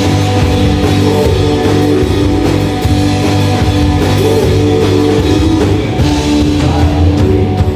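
A rock band playing live: electric guitar and drum kit, loud and steady, in a dense sustained sound.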